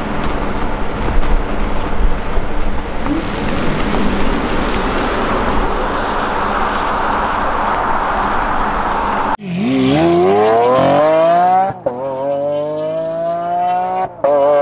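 Cupra Born electric car driving off, heard mostly as tyre and road noise that swells over several seconds. About nine seconds in it cuts to an engine revving up hard, its pitch climbing steeply and then more slowly, broken twice by short gaps like gear changes.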